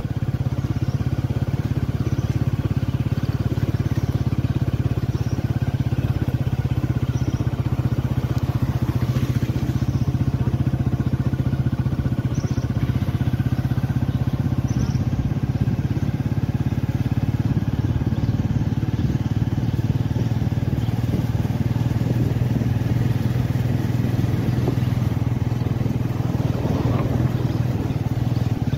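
Motor vehicle engine running at a steady cruising speed, with tyre and road rumble, while driving along a forest road.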